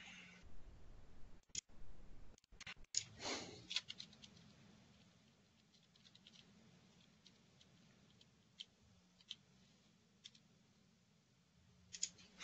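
Faint, scattered clicks of a computer mouse and keyboard: a quick run of clicks around two to three seconds in, then single clicks about every second. A short, soft rush of noise comes about three seconds in.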